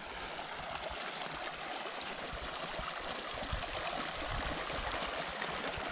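A small, clear mountain stream running steadily over flat slate rock and through pools.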